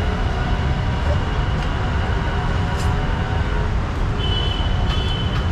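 Steady, loud road-traffic rumble from busy city traffic, with a brief high tone about four seconds in.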